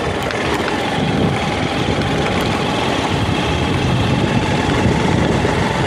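Motorcycle engine running steadily while riding over a rough gravel road, mixed with dense road and wind noise, with a few light ticks in the first couple of seconds.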